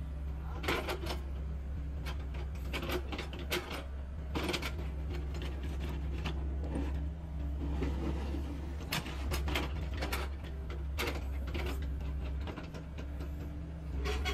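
Doosan DX60-9C mini excavator running with a steady low engine drone while its boom, arm and bucket are worked hydraulically, with repeated short clattering and hissing noises throughout.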